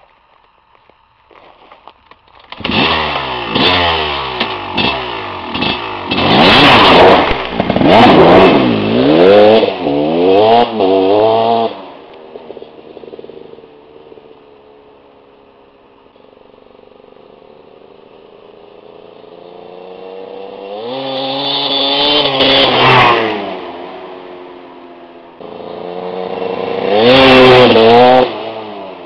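KTM 250 two-stroke enduro motorcycle engine revved hard in a quick string of bursts for about ten seconds. The engine then fades and builds up twice as the bike rides past, loudest near the end before dropping away.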